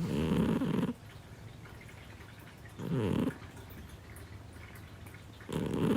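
Scottish Fold cat snoring: three snores, each under a second long, coming about every two and a half to three seconds.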